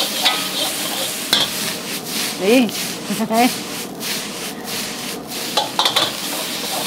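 Chicken fried rice with raw carrot and cabbage being stir-fried in a hot kadai (wok), a steady sizzle under scraping and stirring, with a few sharp knocks about a second in and near the end.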